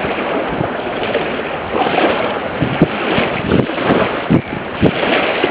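Wind buffeting the microphone in uneven gusts over the wash of choppy water around a boat.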